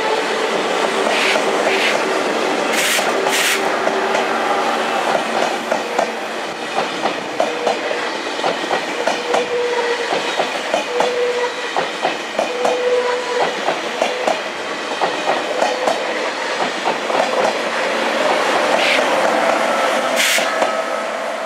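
Two coupled TGV high-speed trainsets, one a double-deck TGV Duplex, passing close by: a loud steady rolling rumble with rapid clickety-clack from the wheels. A few brief high hisses come near the start and again near the end.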